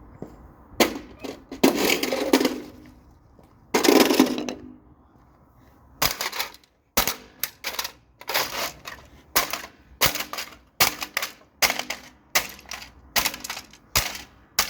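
Plastic toy cash register being smashed: sharp blows and cracking plastic with loose parts rattling, two longer clattering bursts early on. From about six seconds in, a run of strikes comes at about two a second.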